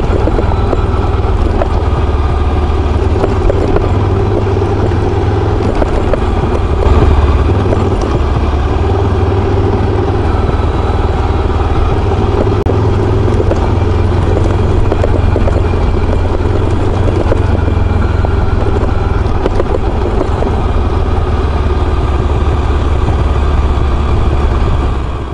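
Ducati motorcycle's engine running steadily under way on a dirt track, heard from the bike-mounted camera, fading out near the end.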